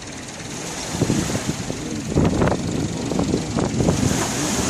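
An engine running under load, growing louder about a second in, as a speedboat is hauled out of the sea.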